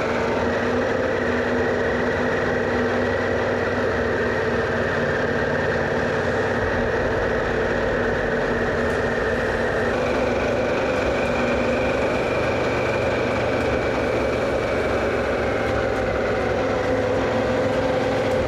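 Harley-Davidson Pan America's V-twin engine running steadily under way, with a constant rush of wind and road noise over it.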